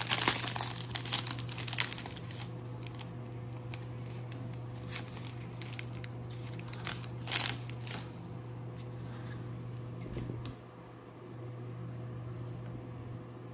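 Cellophane wrapper of a pack of trading cards being torn open and crinkled, densest in the first two seconds, then a few scattered crackles as the cards are pulled out of the plastic. A steady low hum runs underneath.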